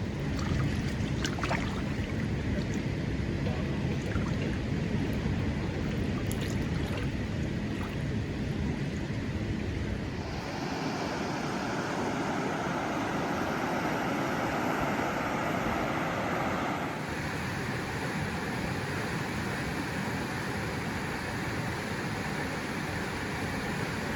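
Steady rush of flowing stream water, its tone changing abruptly twice, about ten and seventeen seconds in, with a few faint clicks in the first seconds.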